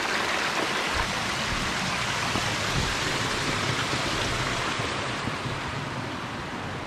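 Cascading stream water rushing steadily, a constant hiss that eases a little in the second half.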